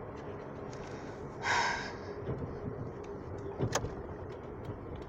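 Car cabin noise while driving: a steady engine and road hum. About a second and a half in there is a short half-second sound, and near four seconds a sharp click.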